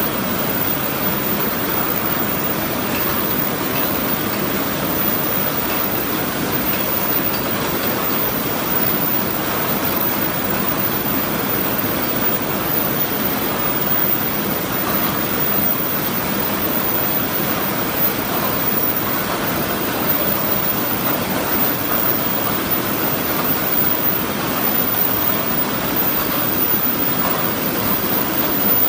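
Steady, dense mechanical din of a row of paper cup forming machines running together.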